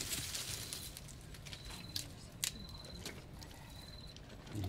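An insect chirping in short, buzzy, high-pitched bursts about once every second, with a few sharp snaps, the loudest about two seconds in.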